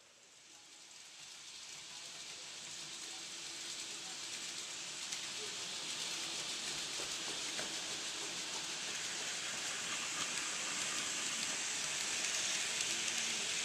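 HO scale model freight train rolling on its track: a steady rushing noise of wheels on the rails that grows louder as the train approaches and its boxcars pass close by.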